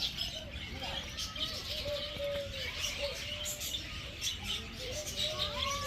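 Birds chirping and calling: repeated short arching calls mixed with scattered high-pitched chirps.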